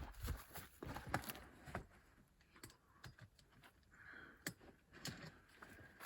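Faint, irregular light clicks and taps, a dozen or so short ones spread unevenly.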